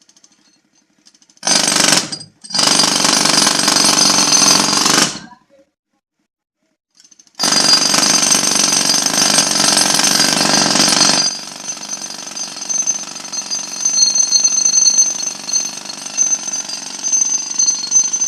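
Pneumatic jackhammer, air-driven from a compressor, hammering in runs: a short burst, a longer run, a pause of about two seconds, then another long run. After that it carries on at a lower, uneven level.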